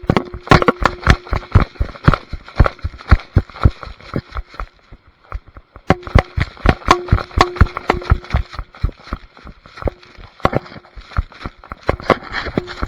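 Running footsteps: quick, heavy, uneven thuds a few per second, thinning out briefly about halfway through, then picking up again.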